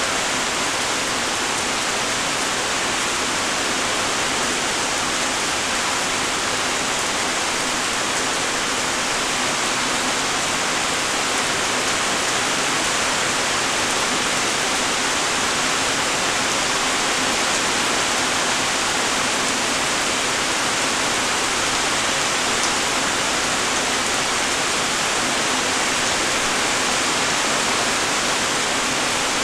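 Light rain falling steadily: an even hiss of many raindrops.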